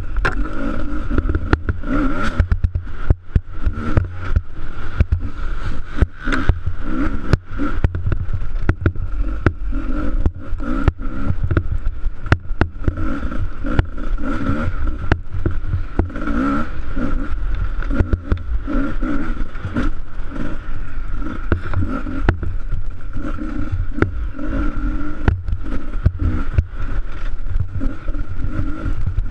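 Off-road motorcycle engine revving up and down as the bike is ridden hard over a rough snowy trail, with frequent sharp knocks and rattles from the bumps and a steady low rumble throughout.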